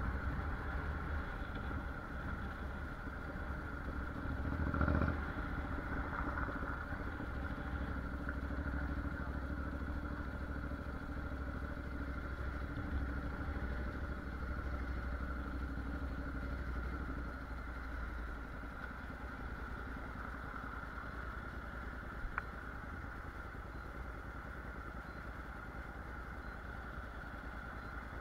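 Honda NC750X parallel-twin engine running at low city speed with road and wind noise, a brief louder swell about five seconds in. The sound settles lower in the second half as the bike slows and stops, with one sharp click near the end.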